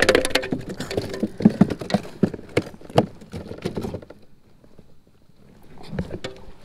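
Smallmouth bass thrashing on a plastic measuring board in a kayak: a rapid clatter of knocks and slaps for about four seconds, then a few softer thumps near the end.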